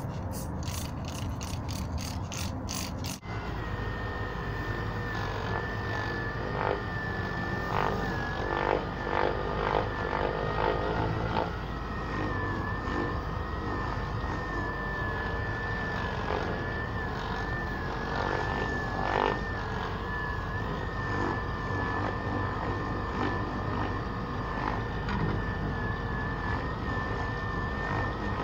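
A trigger spray bottle gives several quick squirts. About three seconds in, an electric orbital buffer with a wool pad starts and runs with a steady high whine that wavers slightly as it buffs wet-sanded paint.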